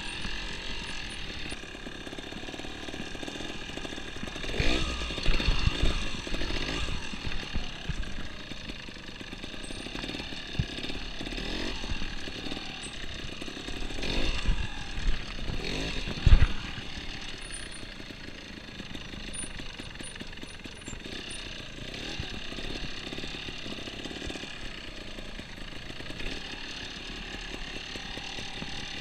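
Trials motorcycle engine running at low revs, revved up in short bursts about 5 seconds in and again around 14 to 16 seconds in. A single sharp knock comes about 16 seconds in.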